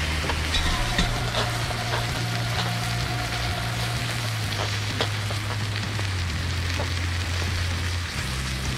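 Molten aluminum sizzling and crackling inside a bucket of wet water beads, flashing the water to hissing steam, with scattered sharp pops.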